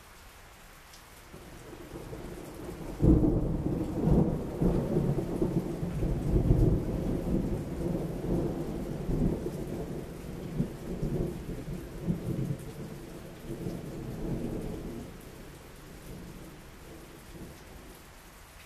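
A long peal of thunder over steady rain. A low rumble builds about a second in, jumps suddenly to its loudest about three seconds in, and rolls on for over ten seconds before dying away near the end.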